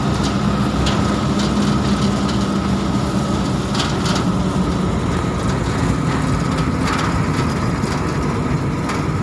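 Steady running noise of a vehicle on the move, heard from inside the cabin: a constant engine drone with road noise, and a few brief high rattles.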